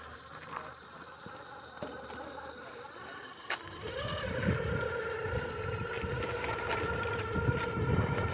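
Radio-controlled crawler's electric motor and gears whining steadily, starting about four seconds in over a low, uneven rumble, after a single sharp click.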